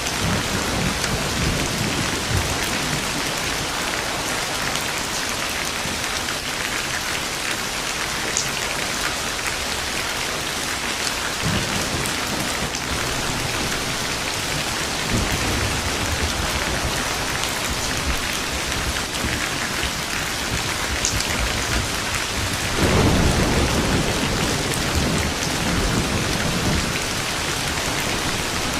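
Steady rain falling, with several low, rolling rumbles of thunder; the loudest roll comes late and lasts a few seconds.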